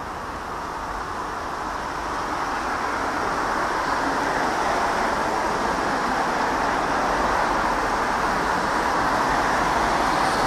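Steady, distant rushing roar of vehicle noise that grows gradually louder.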